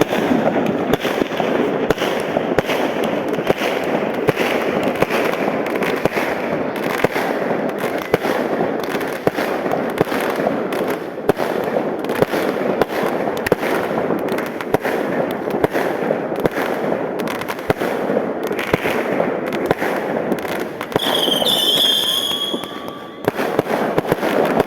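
Mass New Year's fireworks: a dense, continuous crackle of many firework bangs and pops overlapping one another. A brief high whistle sounds near the end.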